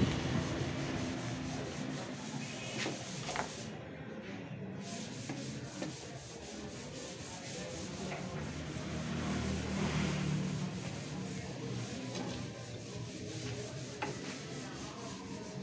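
Wooden strip being handled and slid against a wooden frame and worktable: a rubbing, scraping friction noise with a few light knocks.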